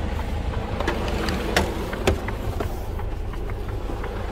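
Lorry's diesel engine idling steadily, with a few light clicks and knocks over it.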